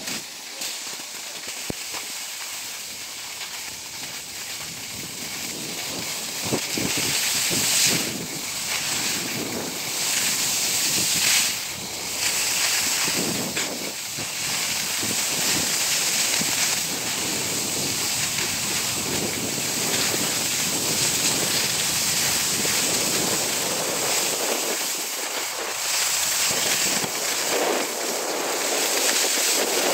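Wind rushing over the microphone during a downhill run, mixed with the hiss and scrape of edges sliding over packed snow; it grows louder and rougher after the first few seconds as speed picks up.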